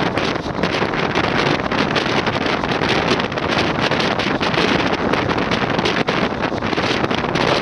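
Wind rushing over the microphone together with the steady rumble and clatter of a passenger train's coaches running at about 110 km/h, heard from an open coach door.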